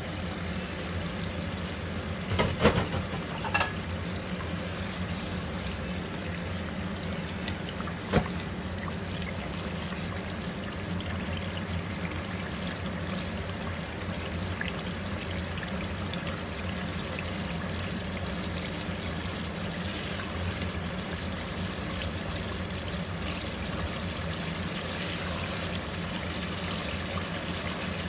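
Tomato-onion masala sizzling and bubbling in a pot while a silicone spatula stirs it, with a few sharp knocks in the first eight seconds and a steady low hum underneath.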